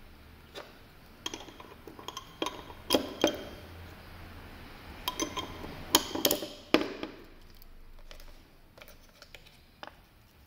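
Small steel parts of a low-profile ratchet wrench head clicking and clinking against each other as they are handled and fitted together by hand. The sharp metallic clicks come in an irregular run, loudest around the middle with brief ringing, and thin out to a few faint ticks near the end.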